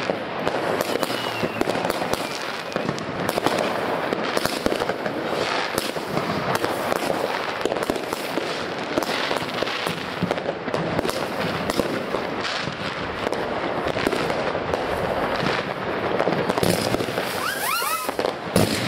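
Consumer firework batteries (cakes) firing: a dense, continuous crackle of shots and bursts, with a few short whistles near the end.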